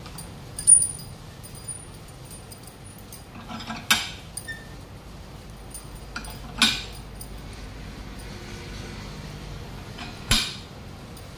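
Steel bar clinking against the screw clamp of a tyre vulcanizing press as the clamp is turned and tightened: four sharp metallic clinks a few seconds apart, the first the loudest.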